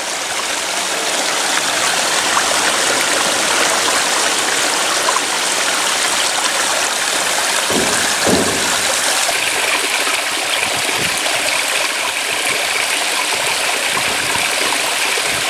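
Steady rush of flowing water pouring over a small spillway into a canal; its tone changes about nine seconds in.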